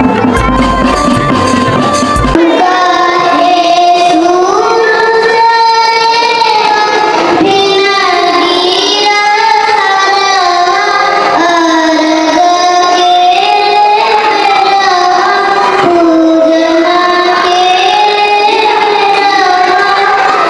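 A percussion-led music bed with deep bass ends abruptly about two seconds in. After it a child sings a melodic song into a microphone, a single clear voice with little accompaniment.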